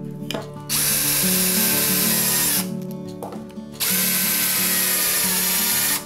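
Yellow cordless drill-driver running at a steady speed in two runs of about two seconds each, each cutting off sharply, as it drives screws through a brass hinge into wood.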